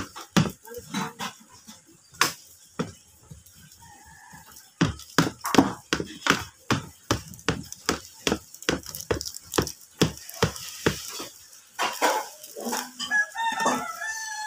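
Wooden spoon stirring thick cake batter by hand, knocking against the side of the mixing bowl in an even rhythm of about three knocks a second.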